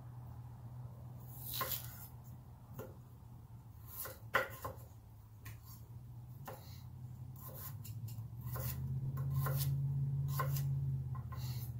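Knife cutting red potatoes on a wooden cutting board: about a dozen sharp, irregular knocks as the blade hits the board. Under them runs a low steady hum that grows louder in the second half.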